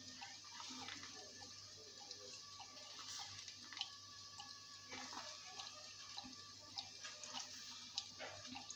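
Faint room tone: a steady low hum under scattered small clicks and taps.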